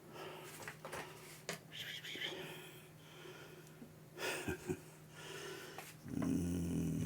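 Several short breathy, sniffing sounds close to the microphone over a faint steady low hum, with a louder stretch of low hummed sound near the end.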